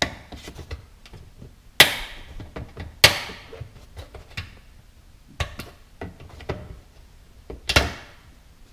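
Plastic push-in retainers being pried out of a plastic engine-bay cover with a flathead screwdriver: a run of sharp clicks and snaps, the loudest about two seconds in, about three seconds in and near the end, with small ticks and scrapes of the screwdriver between.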